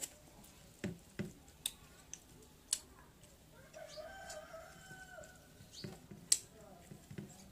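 A rooster crowing once, one held call of about two seconds beginning about halfway through. Scattered sharp clicks and smacks of eating rice by hand from a plate are heard throughout.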